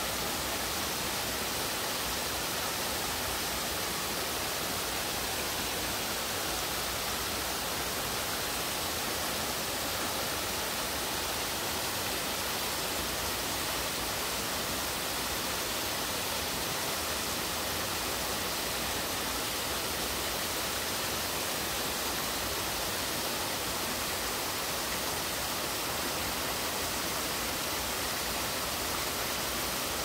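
Twin waterfalls pouring down rock slabs into a pool: a steady, even rush of falling water with no change in level.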